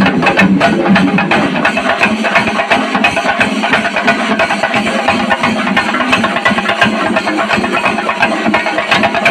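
Chenda melam: a large group of Kerala chenda drums beaten with sticks together, a loud, fast, dense rhythm of strokes that never lets up.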